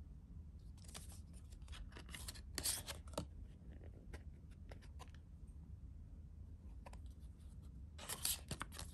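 Faint handling of cardboard CD sleeves and a compact disc: a burst of sliding, scraping rustle a few seconds in, scattered light clicks and taps, and another burst of rustling near the end.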